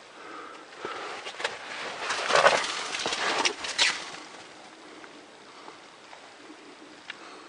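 Close crunching and scraping of snow against clothing and the camera as a caver pushes through a snow passage. It comes as a string of rough scrapes, loudest about two to four seconds in, then dies down to faint rustling.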